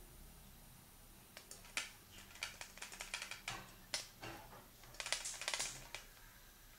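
A run of irregular light clicks and taps, with a quick flurry of them about five seconds in.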